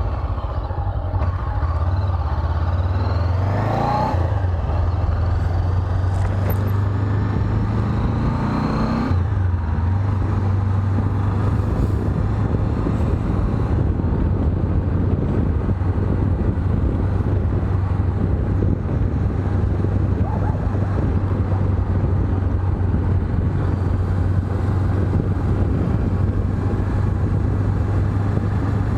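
Honda CB500X's 471 cc parallel-twin engine pulling the bike up through the gears. Its pitch rises and drops back twice in the first nine seconds as it shifts up, then it runs at a steady cruise.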